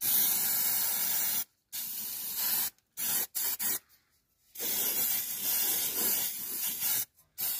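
Aerosol can of cavity wax spraying in hissing bursts: two sprays of a second or so, a few short puffs around three seconds in, a pause, then a long spray of about two and a half seconds and a brief one near the end.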